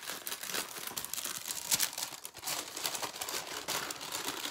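Packaging being unwrapped by hand: steady crinkling and rustling, with a sharper crackle a little under two seconds in.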